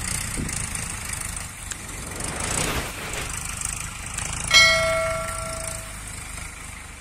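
Tractor diesel engine running with a steady low rumble. About four and a half seconds in, a single bell-like metallic ring sounds and fades away over about a second and a half.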